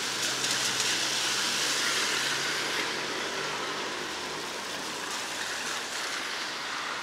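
Motor vehicle passing on a wet road: the hiss of tyres on the wet surface swells over the first few seconds and then eases, over a low engine hum.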